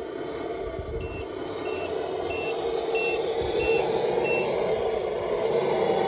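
Radio-controlled dump truck sounding a reversing beeper: six short high beeps about two-thirds of a second apart, starting about a second in and stopping past the four-second mark, over a steady running drone.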